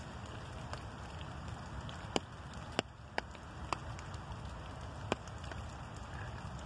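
Light rain falling, a steady hiss with about five sharp taps scattered through the middle of it.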